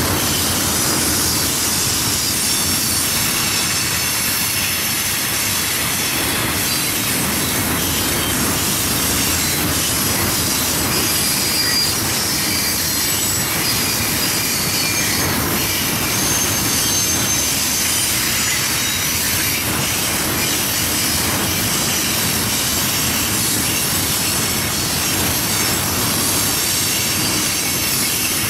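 Freight train of tank cars rolling steadily past, a continuous rumble of wheels on rail with faint high squealing tones above it.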